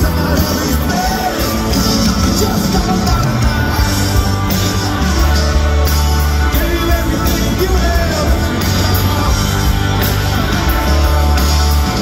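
Live rock band playing loud through a concert PA: a male lead vocal over electric guitar, keyboards, heavy bass and a steady drum beat.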